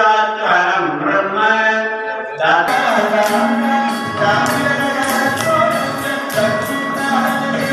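Temple priest chanting a mantra into a microphone, cut off about two and a half seconds in by dance music for Bharatanatyam with a steady beat of bright metallic strokes about twice a second.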